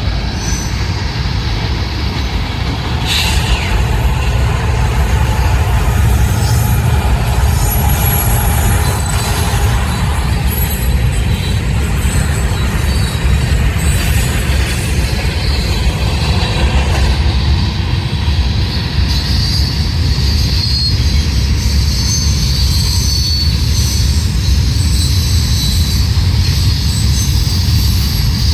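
Freight train cars rolling past on the rails: a steady, heavy rumble of wheels on track, with high-pitched wheel squeal growing stronger in the second half.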